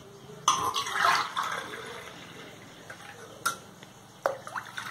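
Coconut water and lemon juice with sugar being poured between a steel cup and a steel bowl to mix it and dissolve the sugar: a splashing pour starting about half a second in and tailing off, then two sharp knocks of metal and another short splash near the end.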